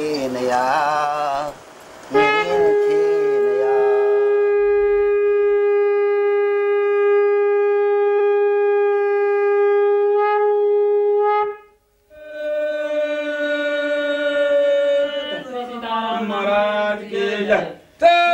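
A wind instrument sounding long held notes. One steady note lasts about nine seconds and stops abruptly; after a brief silence a lower note is held, then breaks into wavering, shifting pitches near the end.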